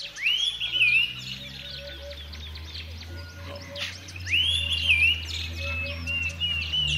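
Birds chirping, with a louder rising whistled call twice, about four seconds apart, over a steady low hum.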